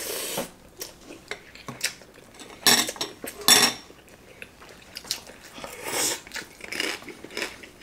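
Chopsticks clicking and scraping against plates at a table, with a few louder scraping bursts about three seconds in.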